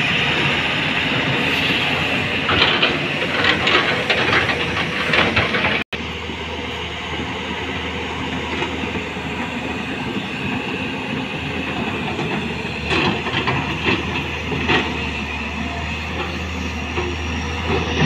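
Heavy diesel machinery running: a loaded tipper truck stuck in mud, its engine under load, with clattering and knocking for the first few seconds. After an abrupt cut about six seconds in, a steadier engine drone with a low hum follows from the truck and a crawler excavator, with occasional knocks.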